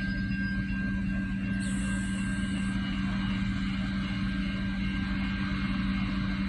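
Adelaide 3000/3100 class diesel railcars running at low speed, a steady low drone. A brief high hiss comes about one and a half seconds in.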